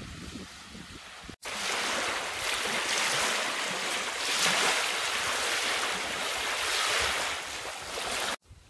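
Small wind-driven waves lapping and breaking on a gravel lakeshore, with wind. The sound starts abruptly, loud and steady, about a second and a half in and stops abruptly near the end. Before that there is a quieter low rumble of wind on the microphone.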